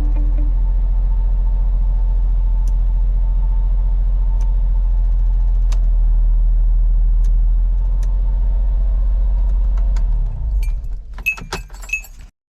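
Honda Beat's small three-cylinder engine idling steadily, then switched off about ten seconds in, followed by a second or so of key clinks and clicks.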